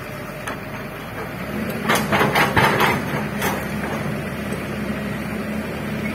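Excavator's diesel engine running, picking up about a second and a half in, with a quick run of metal clanks and knocks lasting about a second and a half.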